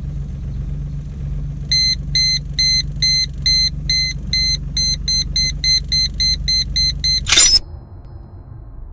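Aftermarket reverse parking sensor buzzer beeping repeatedly inside a Perodua Kancil, the beeps coming quicker after about five seconds as the car backs closer to an obstacle, over the low steady hum of the running engine. About seven seconds in, a short loud burst of noise cuts the beeping off.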